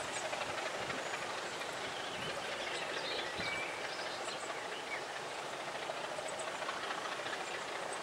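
Train running away along the line, a steady rumble of wheels on the rails.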